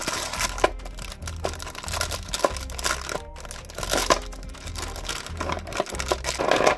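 Packaging crinkling and rustling in repeated bursts as it is handled, with soft background music underneath.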